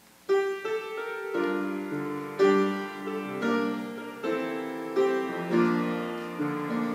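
Piano playing the opening of a worship song, starting just after near silence: slow chords, each struck and left to ring, with a melody over them.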